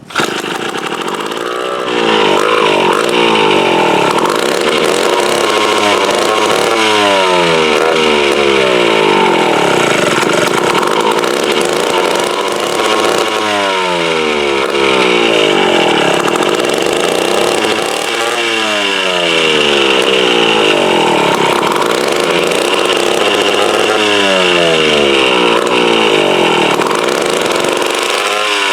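Mid-1950s Strunk Speed Demon two-stroke chainsaw engine catching right at the start and running, its speed rising and sagging back over and over every few seconds. The owner puts its rough running down to a carburettor that needs a rebuild.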